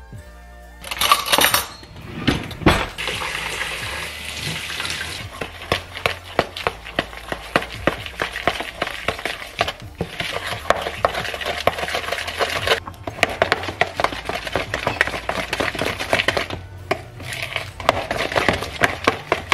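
Red velvet brownie batter being mixed by hand in a plastic mixing bowl. About a second in there is a brief rush as flour is tipped in from a measuring cup, then a knock, then rapid scraping and tapping of the utensil against the bowl as the dry ingredients are worked into the wet, with a few short pauses.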